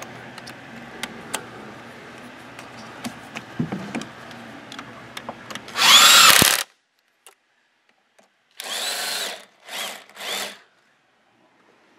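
Light clicks and rustling of plastic intake parts being handled. Then a cordless power driver with a socket extension drives in a mounting bolt: one longer whining burst about six seconds in, and three short bursts near the end as the bolt is snugged down.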